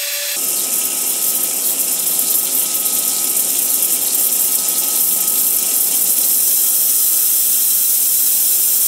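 Wire EDM machine cutting aluminium under flushing jets of dielectric water: a steady hiss of spraying and splashing water that grows a little louder over the first few seconds.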